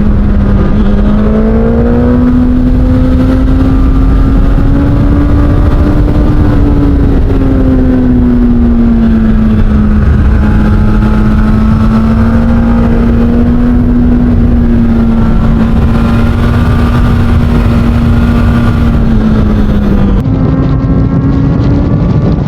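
Suzuki GSX-S1000's inline-four engine breathing through an SC-Project aftermarket exhaust, running on the move under steady throttle. Its pitch climbs slowly, eases back about seven seconds in and holds, then dips and jumps higher near the end.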